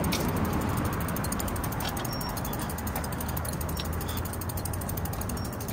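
Bicycle rear freewheel clicking rapidly and steadily as the bike coasts, over a low rumble of the tyres rolling on pavement.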